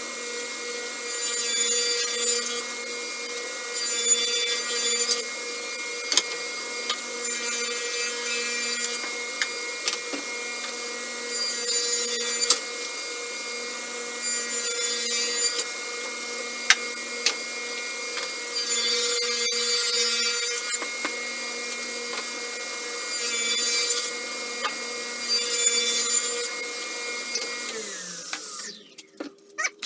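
Table saw running steadily while cutting rabbets into the edges of 3/4-inch maple plywood panels, in about eight short passes. Each pass is a burst of blade-in-wood cutting noise over the motor's hum. Near the end the saw is switched off and winds down.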